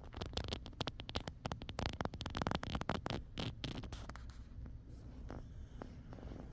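A quick, irregular run of scratchy clicks and rustling close to the microphone, dying away about four and a half seconds in to a few faint ticks.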